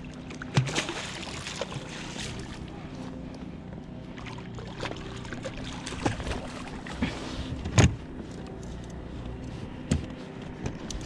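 Knocks and clatter of gear being handled on a plastic pedal fishing kayak: about four sharp knocks with some rattling between them, the loudest near eight seconds in.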